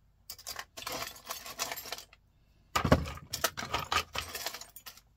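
Small scrap electronic parts, metal and plastic pieces, clattering and rattling as hands rake through a pile on a sheet-metal workbench and drop pieces into a plastic tub. A louder clatter with a thump starts a little before halfway.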